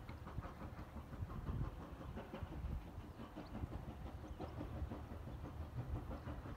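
Wind buffeting the microphone: an uneven low rumble that rises and falls in gusts, with a few faint scattered ticks.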